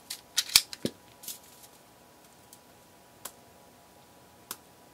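Sharp snips and clicks of a diode being cut out of clear plastic component carrier tape: a quick cluster of clicks in the first second and a half, the loudest about half a second in, then two single clicks later.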